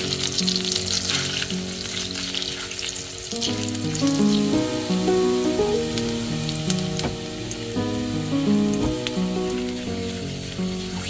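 Melted butter sizzling and crackling in a frying pan as minced garlic goes in, the crackle strongest in the first few seconds. Flour is then stirred in to start a roux, and the sizzle carries on more softly.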